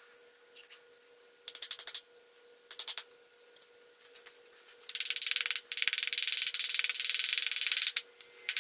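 Rapid mechanical clicking from hand work on a car AC compressor: two short bursts about one and a half and three seconds in, then a longer run of fast clicking clatter lasting about three seconds near the end.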